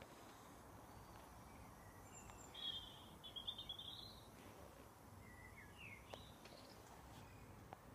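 A songbird singing two short warbled phrases, the first about two and a half seconds in and a briefer one around six seconds, over a faint steady outdoor background noise.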